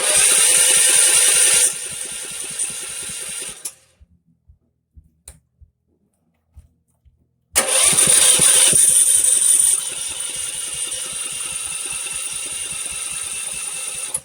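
Small engine driving a mini backhoe's hydraulic pump starts and runs fast for under two seconds, drops to a lower speed and dies after about four seconds. It starts again about seven and a half seconds in, runs fast, drops lower and dies again near the end: the engine keeps stalling out.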